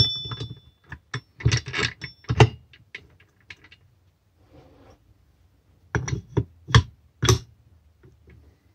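Metal tools and parts clicking and knocking during hand work on a moped. The first run of knocks opens with a brief metallic ring, and a second run follows after a pause of a few seconds.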